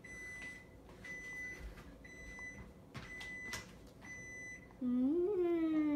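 Five electronic beeps from a household appliance, evenly spaced about a second apart, each a short steady high tone. Near the end a voice gives a long, drawn-out vowel.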